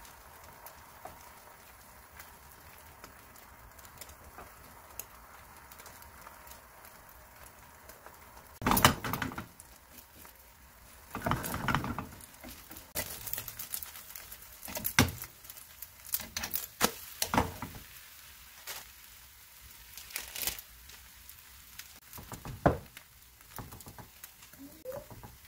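Egg and bread cooking on low heat in a nonstick frying pan with a faint steady sizzle. From about nine seconds in come irregular clicks, taps and scrapes of wooden chopsticks and a spoon against the pan as the toast is flipped and strawberry jam is spread.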